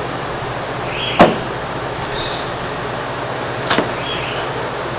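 Two chops of a meat cleaver through a suckling pig's ribs onto a wooden chopping block, one a little over a second in and a weaker one near the end. Both ring out over a steady background hum.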